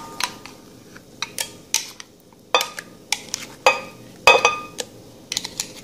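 A kitchen utensil clinking and scraping against a container and a glass blender jar as thick whole cream is spooned in: about seven separate sharp clinks, some ringing briefly.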